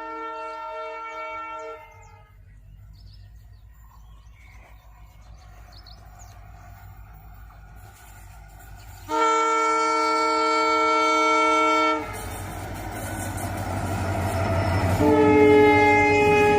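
Indian Railways locomotive air horn. A held horn note ends about two seconds in, with a low rumble under it. A loud blast of about three seconds follows, starting and stopping sharply. After it the rumble of a running train swells, and another long horn blast begins near the end.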